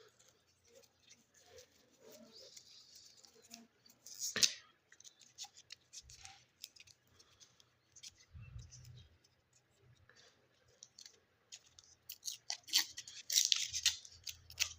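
Chocolate and candy wrappers being torn open and crinkled by hand: scattered crackles and rustles, with one sharp crackle about four seconds in and a longer, louder burst of crinkling near the end.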